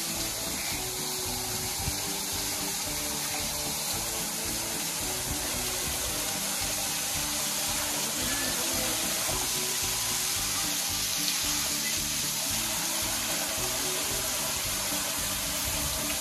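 Background music with held notes over a steady rushing of falling water from a waterfall.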